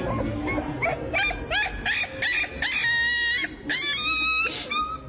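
Puppy crying while its paw is held, probably for a nail trim: a run of short rising-and-falling yelps, then long high-pitched screams from a little past halfway.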